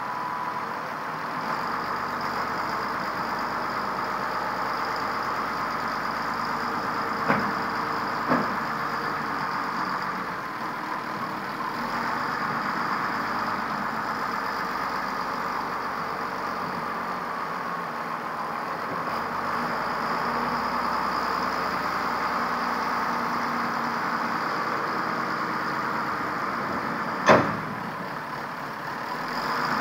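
Volvo wheel loader's diesel engine running steadily as the machine works the bucket, spreading asphalt millings. There are a few sharp knocks: two close together about seven seconds in, and a louder one near the end.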